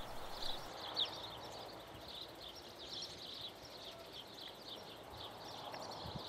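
Birds chirping: many short, high chirps in quick, irregular succession over a faint steady background hiss.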